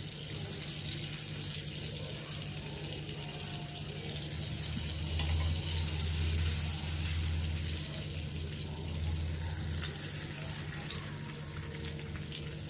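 Flour-coated Indian mackerel shallow-frying in hot oil in a pan: a steady sizzle. A low rumble swells for a few seconds in the middle.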